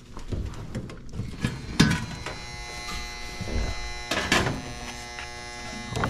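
Luxaire gas furnace's draft inducer motor running with a steady buzzing whine. The sheet-metal front panel clunks twice as it is pulled off, about two and four seconds in.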